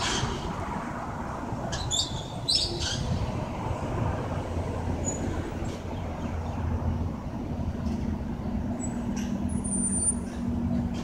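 Melbourne A-class tram passing close by at low speed: a steady rumble of wheels on the rails, with a low hum that holds a steady pitch over the last few seconds. A few short high squeaks in the first three seconds.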